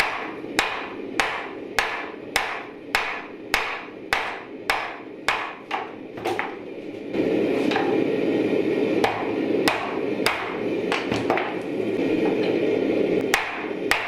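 Hand hammer striking the hot steel of a pipe-wrench jaw being forged, in steady ringing blows about one and a half a second. About halfway through, the hammering gives way to the steady rushing roar of a propane forge burner with a few lighter taps. The blows resume near the end.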